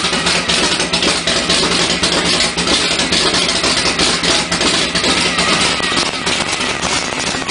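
Studebaker 289 V8 with FiTech throttle-body fuel injection idling steadily, the EFI set to hold about 1000 rpm while its idle tune is being worked out.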